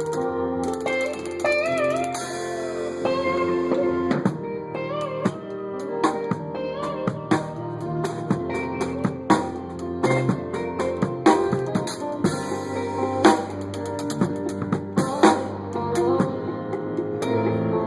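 Live band music: an electric guitar playing bent, wavering lead notes over sustained chords, with drum-kit hits.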